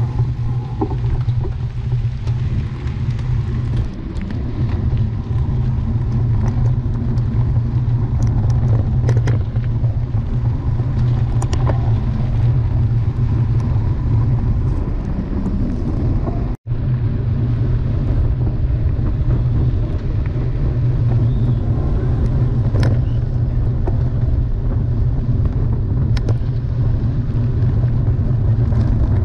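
Continuous loud low rumble with scattered short clicks and knocks; it cuts out for an instant a little past halfway.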